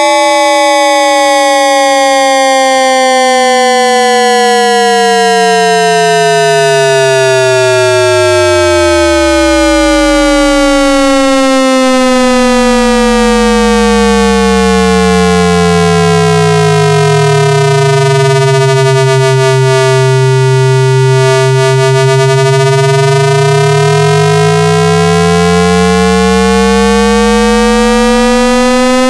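AM radio sound effect: a loud, buzzy electronic whistle with many overtones that glides slowly down in pitch for most of the time, then slides back up near the end.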